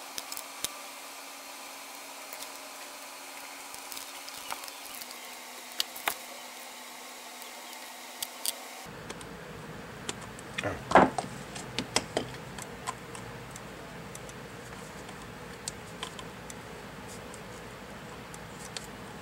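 Scattered light clicks and taps of a hand screwdriver and small metal screw and nut being worked by hand into an RC truck's shock mount, with a cluster of louder clicks about eleven seconds in, over a steady faint hum.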